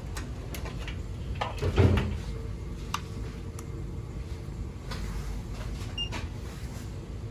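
Clicks and light knocks from a clamp meter and its test leads being handled, with one louder knock about two seconds in, over a steady low hum.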